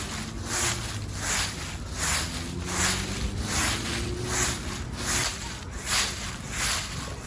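Footsteps crunching through dry leaves at a steady walking pace, about ten even steps.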